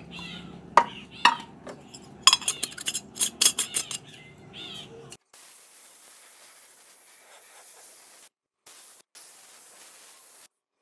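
Sharp metal clinks of a paint can and a spray gun's steel paint cup being handled. Then a compressed-air gravity-feed paint spray gun hisses steadily as it sprays black paint, breaking off briefly a few times.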